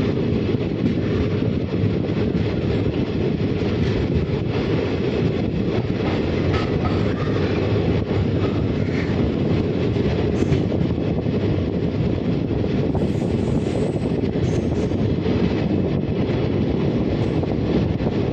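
Kerala Express coach running along the rails, a steady rumble of wheels on track heard from the open doorway.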